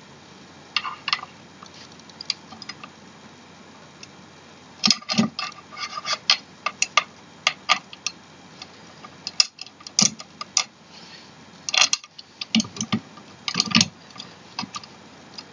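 Irregular small metal clicks and clinks of screws, washers and an Allen key being handled and fitted into a chair frame, in scattered clusters with short quiet gaps.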